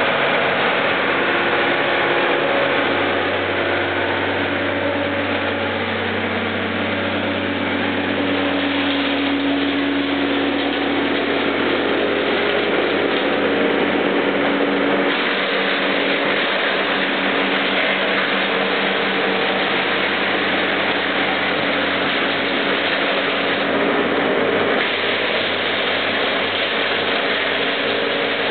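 Heavy Landini tractor's engine running steadily, powering a wood chipper that shreds branches and trunks, with a continuous rough chipping noise over the engine hum.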